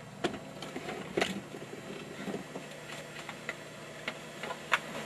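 Scattered light clicks and taps of someone working at a computer keyboard and desk, a few sharp clicks among softer ones, over a faint steady low hum.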